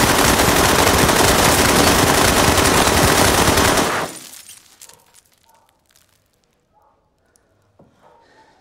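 Kalashnikov assault rifle firing a long fully automatic burst that cuts off about four seconds in.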